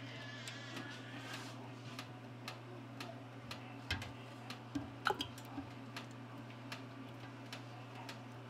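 Spatula scraping and tapping against the inside of a stainless steel pot, making light, irregular clicks about twice a second, over a steady low hum.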